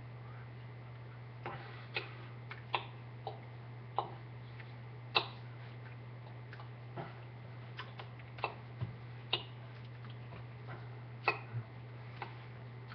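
Irregular soft clicks and taps from hands striking and brushing each other and the body while signing, about a dozen spread unevenly, over a steady low electrical hum.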